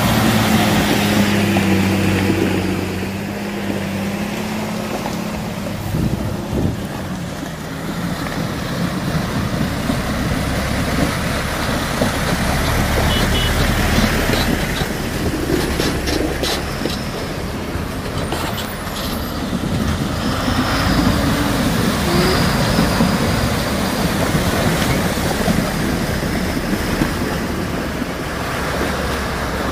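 Heavy diesel goods trucks crawling through deep mud and standing water, their engines running under load with a continuous low rumble. A steady engine drone is loudest at the start and fades after about three seconds, and there are a few short hisses around the middle.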